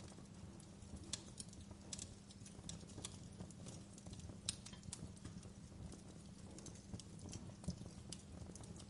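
Faint wood fire crackling: irregular sharp pops and snaps, a few louder ones standing out, over a steady low hum.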